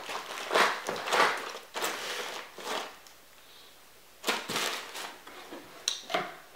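Rustling and crinkling of a paper towel roll and plastic items being handled on a countertop: several brisk rustles, a short pause, then more rustling and a couple of sharp clicks near the end.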